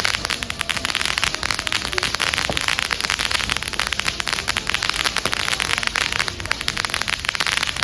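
A firework crackling without a break, a dense rapid sputter of tiny pops.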